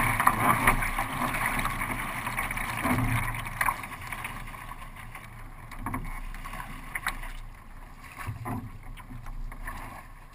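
Water rushing and splashing around a kayak on open sea, with scattered knocks and a fading rush as the run eases off.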